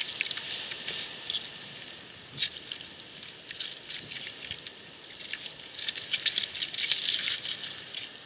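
Beach pebbles clicking and clattering against each other in quick, irregular runs, thickest from about six to seven and a half seconds in.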